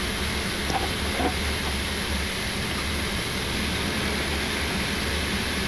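Steady jet airliner cockpit noise while taxiing in after landing: the engines at idle and the air-conditioning hiss over a constant low hum.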